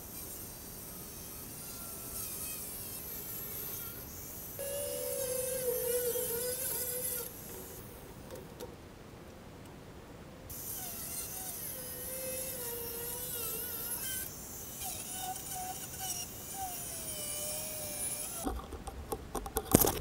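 Corded angle grinder cutting a foam-core composite sheet, its whine wavering in pitch as it bears into the cut, in stretches of a few seconds. A few knocks near the end as the sheet is handled.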